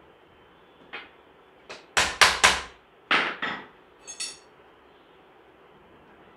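Knocks and clinks of a cloth dryer stand's steel tubes and plastic connector pieces being handled and fitted together: a string of sharp knocks, the loudest about two seconds in, ending with a short metallic ring.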